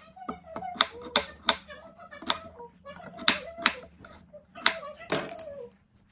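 Kitchen knife cutting a peeled russet potato on a cutting board: a string of sharp knocks as the blade goes through and strikes the board, a few each second.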